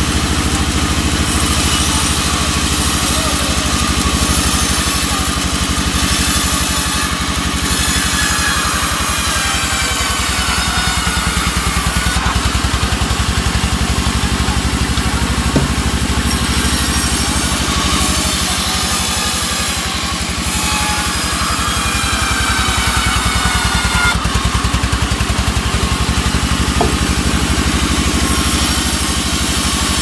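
Sawmill band saw cutting albasia logs into rafter stock, its drive running steadily and loudly underneath. The high hiss of the blade in the wood comes and goes in spells of a few seconds as each cut is fed through.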